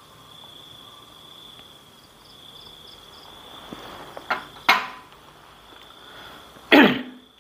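Crickets trilling steadily in one high continuous tone. Two sharp clicks come about four and a half seconds in, and a louder, short rushing noise falling in pitch comes near the end.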